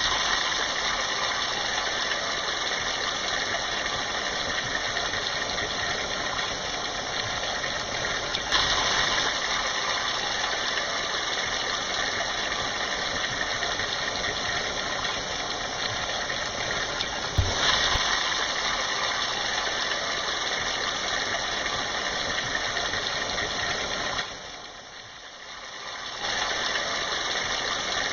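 Heavy rain pouring down in a steady dense hiss. It swells briefly twice, and fades for a couple of seconds near the end before coming back.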